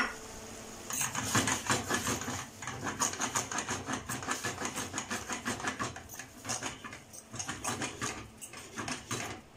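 Metal spoon stirring and tossing spaghetti in a stainless steel pan: quick, irregular clinks and scrapes against the pan, starting about a second in.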